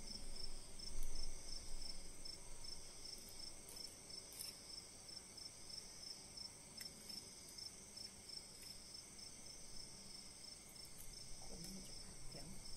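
Crickets chirring steadily: a high, continuous trill with a note in it that pulses about three times a second. A brief low thump about a second in.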